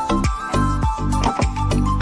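Background music with a steady beat, about four strokes a second, under held melody notes.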